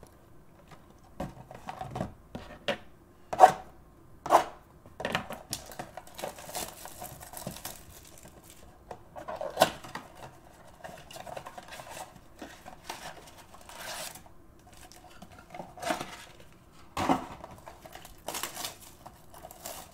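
Sealed trading-card boxes and cards being handled on a table: irregular knocks and clicks as boxes are picked up and set down, with stretches of cardboard and plastic rustling between them.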